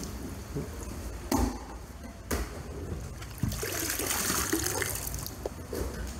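Water pouring in a stream and splashing into standing floodwater, with a few knocks, the loudest about a second and a half in.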